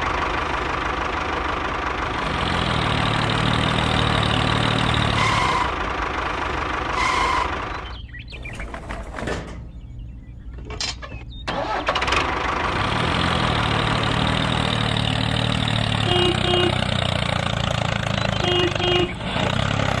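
Tractor engine running steadily, dropping away for a few seconds midway, then running again.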